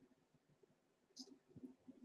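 Near silence: room tone, with two faint short clicks about a second and a half in.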